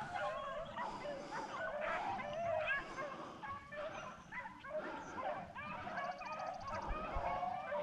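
A pack of rabbit-hunting hounds baying as they run a rabbit's trail, with many short overlapping yelps and bays.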